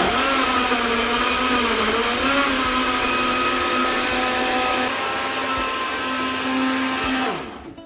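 Personal bullet-style blender running, its motor blending milk, banana and ice cream into a smoothie; the whine wavers in pitch early on, then the motor is switched off near the end and spins down with a falling pitch.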